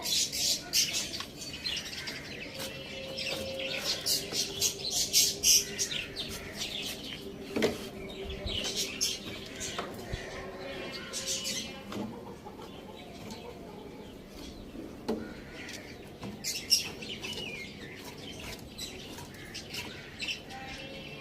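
Birds chirping in repeated high, rapid bursts, loudest in the first few seconds, with scattered sharp clicks.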